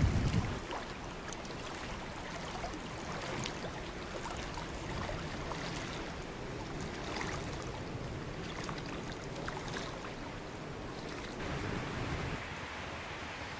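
Floodwater-swollen river rushing steadily, with a wind gust buffeting the microphone right at the start.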